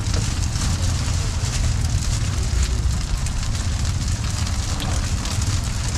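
Garlic chive cakes sizzling and crackling in shallow oil on a wide flat frying pan, over a steady low rumble of street traffic.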